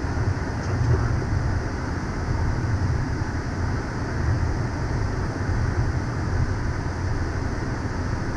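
Steady in-flight cockpit noise of a Cessna Citation CJ3 business jet: a constant low rumble with hiss from the airflow and the turbofan engines, unchanging throughout.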